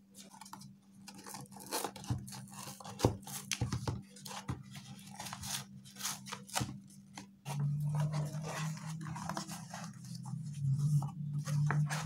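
Corrugated cardboard copy-paper carton being pulled apart at its glued flaps and unfolded flat: a run of short cardboard scrapes, crackles and rustles. About halfway through, a steady low drone joins under the handling noise.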